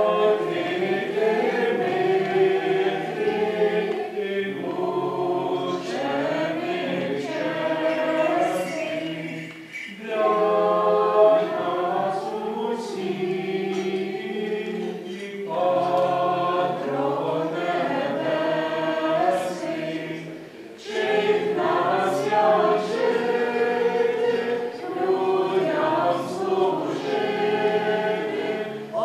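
Church congregation singing a hymn together from song books, in sung phrases of about five to six seconds with short pauses for breath between them.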